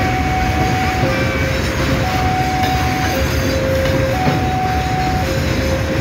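Railway tank wagons rolling past at close range. Over the steady rumble a level-crossing warning alarm sounds, alternating between a higher and a lower tone, switching about once a second.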